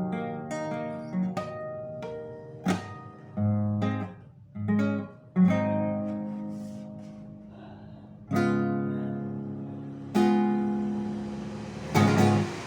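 Classical guitar with a meranti body being played solo. It opens with a few quick plucked notes, then moves to single strummed chords, each left to ring out and fade; the last chord comes near the end.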